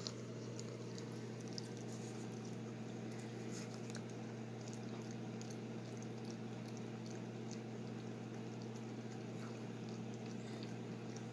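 Boxer puppy chewing and licking, making small faint wet clicks scattered throughout, over a steady low hum.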